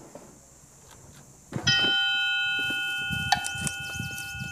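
A bell-like chime sound effect rings out about a second and a half in and hangs on, slowly fading, with a lighter ping struck over it about two seconds later.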